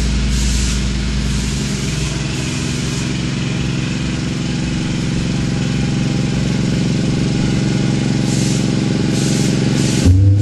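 Honda walk-behind self-propelled lawn mower's single-cylinder engine running steadily at an even speed.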